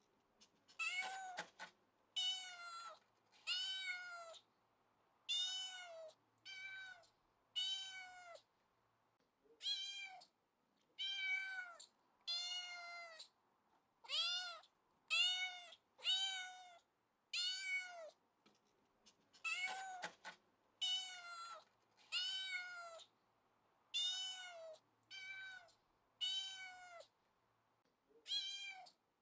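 Domestic cat meowing over and over, about one short meow a second, each one arching up and falling in pitch, with silent gaps between.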